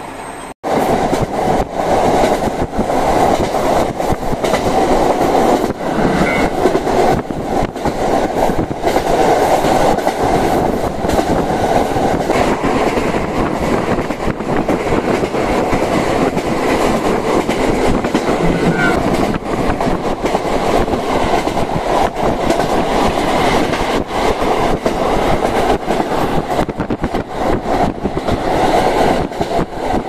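Diesel railcar running at speed, heard from inside the car: a steady engine and rolling noise with wheels clicking over the rails. It starts after a brief break about half a second in.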